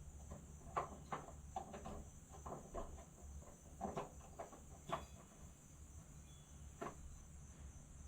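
Quiet outdoor background with a steady high-pitched insect drone and a few faint, scattered clicks and knocks.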